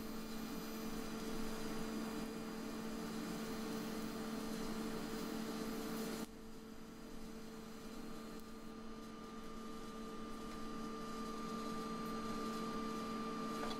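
TIG welding: a steady electrical hum with a hiss over it, the hiss dropping a little about six seconds in.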